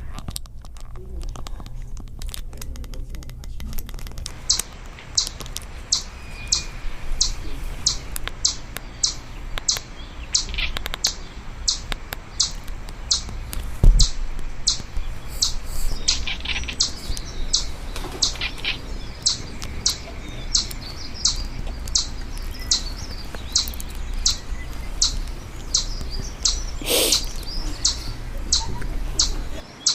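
A small bird chirping over and over in short, high notes, about two a second, over a steady low hum, with a single thump about halfway through.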